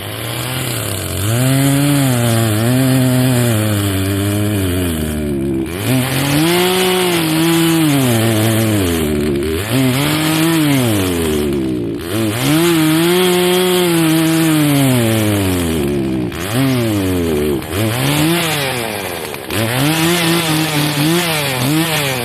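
Gas chainsaw's two-stroke engine running, its speed rising and falling again and again as the throttle is opened and let off.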